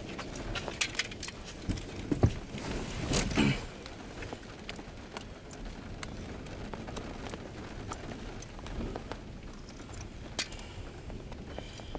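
Scattered raindrops ticking irregularly on a car's windshield and roof, heard from inside the car. A cluster of louder knocks comes about two to three and a half seconds in.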